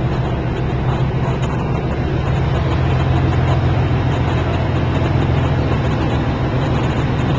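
Canal tour boat's engine running steadily under way, a loud low drone with a fast even throb.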